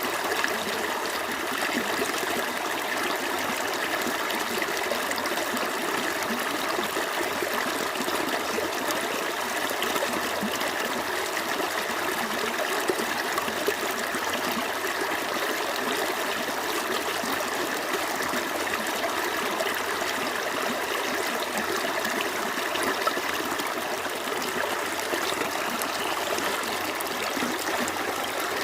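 A small stream flowing over stones, a steady babbling and trickling rush of running water.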